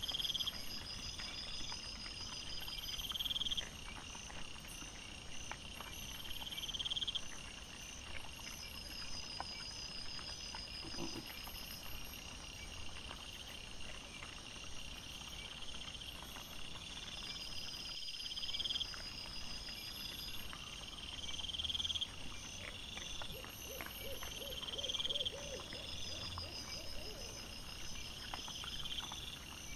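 Night insects chirping: repeating high-pitched trains that swell and stop every couple of seconds, overlapping one another, with a steady fainter pulsing above them. Faint scattered ticks and rustles sit underneath.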